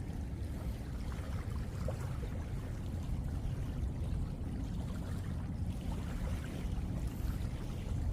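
Steady low rumble of wind buffeting the microphone, with no distinct events standing out.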